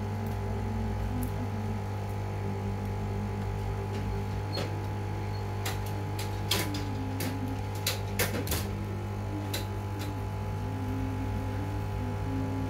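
Steady low electrical hum, with several light clicks and taps midway as a power-supply circuit board is handled and worked on with a tool.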